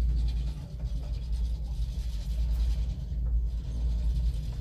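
Steady low rumble of wind buffeting the microphone through the open window of a cable car cabin as it climbs.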